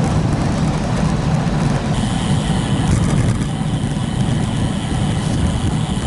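Wind rushing over the microphone of a camera riding along on a bicycle: a steady, loud low rumble. A thin high whine comes in about two seconds in and holds.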